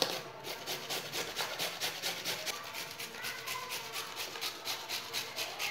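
Carrot being grated on a handheld grater, rubbed quickly back and forth across the blades in a steady rasping scrape of about five strokes a second.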